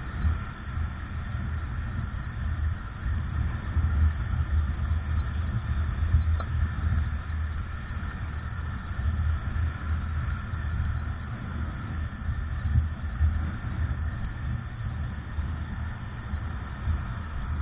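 Low, steady rumble of wind buffeting the microphone and road noise from riding a bike along a busy road, with car traffic running alongside.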